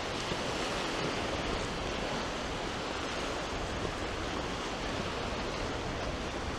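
Sea surf washing steadily onto the beach, with some wind on the microphone.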